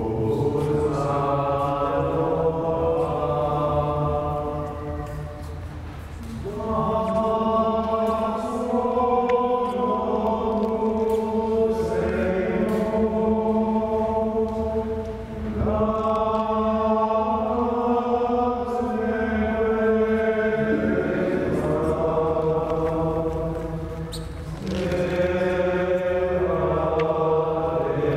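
Slow sung chant: long held notes in unhurried phrases of about nine seconds, with a brief pause between phrases.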